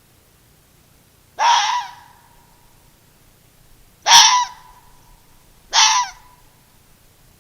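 An animal giving three short, raspy calls, each about half a second long, the second and third closer together.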